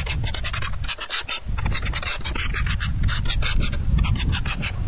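Hand scraper scraping loose old varnish off weathered wooden tabletop slats in quick, short, repeated strokes, several a second, over a low rumble.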